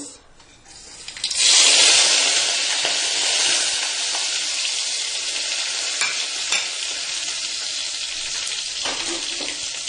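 Curry leaves, mustard and cumin seeds and a bay leaf dropped into hot oil and ghee in a pressure cooker: a loud sizzle starts suddenly about a second in, then settles into a steady sizzle with a few sharp pops.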